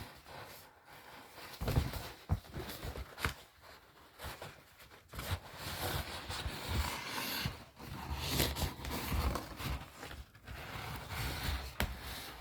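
Rustling and scraping of items and their packaging being handled, with scattered light knocks and clicks.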